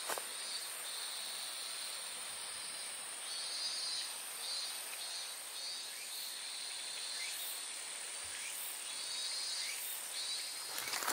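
Insects chirring in the undergrowth: a steady high-pitched drone, with trilled phrases a second or two long coming and going beneath it.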